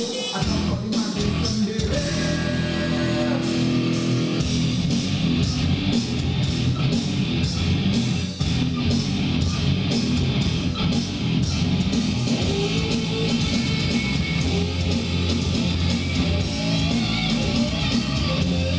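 Rock-style music with guitar and a steady beat, played back through a homemade 200-watt class-D amplifier and its speaker.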